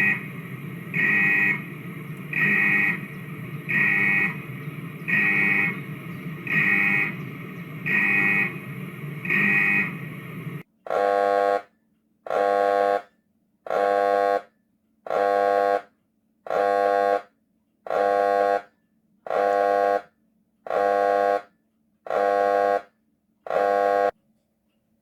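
Recreated railway level-crossing warning signal: a pitched electronic tone repeating about every 1.4 seconds. For about the first ten seconds the tones sound over a steady background noise. After that they sound alone, each tone followed by silence.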